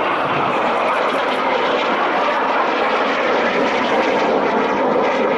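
BAE Hawk T1 jets flying past in formation, the loud, steady noise of their Adour turbofan engines.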